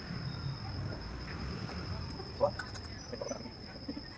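Crickets trilling steadily at night, one continuous high note, with faint indistinct voices and a brief click about halfway.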